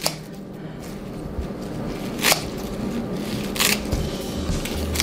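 Kitchen scissors snipping through leaves of purple lettuce: two short, sharp snips a little over a second apart.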